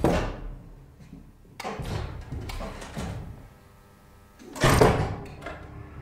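Heavy mechanical clunks and knocks from a 1942 Siemens elevator: a loud clunk at the start, a few lighter knocks in the middle, and a second loud clunk about four and a half seconds in, followed by small clicks.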